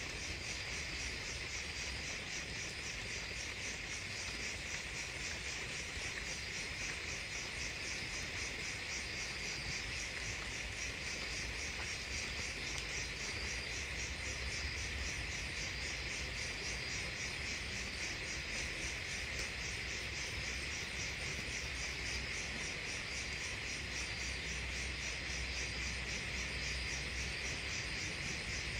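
Steady chorus of night insects chirping: a continuous, fast, even trill that never breaks.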